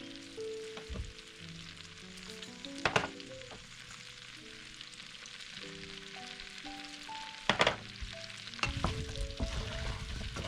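Food sizzling as it fries in a pan, with sharp knocks of a utensil against the pan about three seconds in and again near eight seconds. Background music with sustained notes plays underneath.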